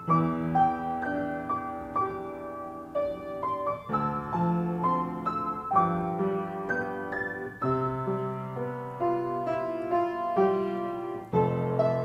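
Background piano music: held chords under a melody line, with new notes struck every second or so.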